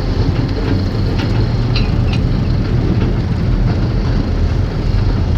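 Diesel engine of a compact Airman mini excavator running steadily under work, with a constant low hum. A few short, light clinks sound between about one and two seconds in.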